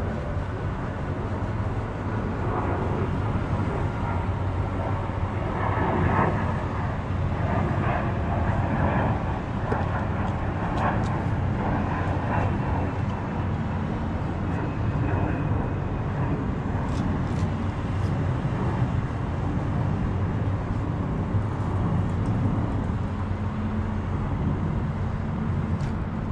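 Steady low drone of an idling engine, with a cloth rubbing and scrubbing over a polished aluminium truck wheel rim, most busily from about six to twelve seconds in.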